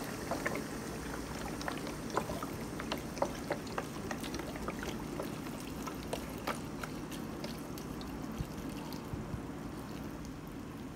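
Chicken broth pouring from a carton into a pressure-cooker pot full of kale: a steady trickle with scattered small clicks and splashes.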